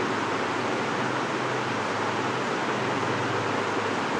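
Steady, even hiss of room noise with a faint low hum. No distinct strokes or knocks stand out from it.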